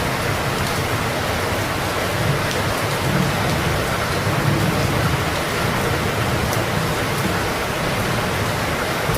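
Steady rain falling in a dense, even hiss, with a low rumble that swells and fades underneath.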